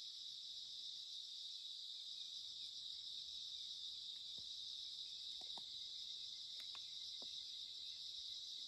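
Insects chirping in a steady, unbroken high-pitched chorus, with a few faint ticks in the second half.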